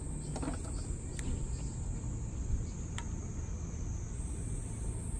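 Steady high-pitched drone of summer insects, shifting slightly in pitch about four seconds in, over a low outdoor rumble, with a couple of faint clicks.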